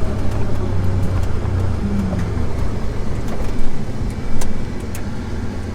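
Jeep Wrangler TJ engine running steadily while driving through soft swamp mud, with a few sharp knocks a little past the middle.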